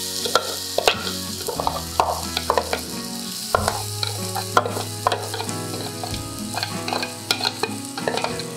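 Finely chopped vegetables sizzling in a little hot oil in a frying pan, with repeated sharp knocks and scrapes as they are tipped and shaken out of a plastic chopper bowl onto the pan.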